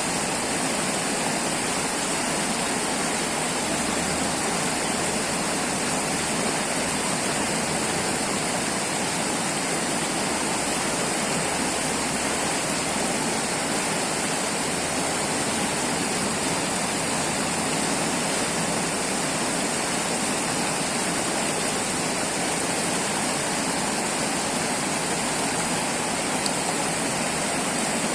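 River water flowing steadily, a constant even rush of moving water with no pauses or changes.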